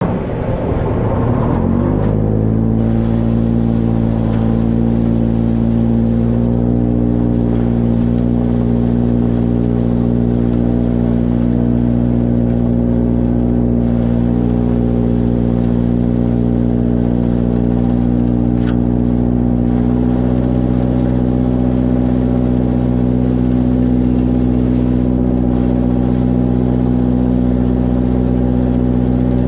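Tractor engine rising in revs over the first two seconds, then running steadily at constant high revs.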